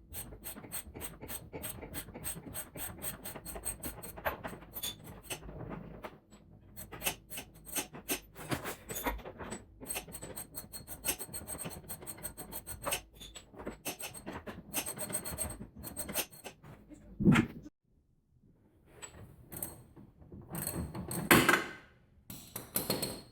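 Socket ratchet clicking rapidly in runs as the upper control arm bolt of a Mazda Miata's front suspension is wound out. Two louder knocks come near the end.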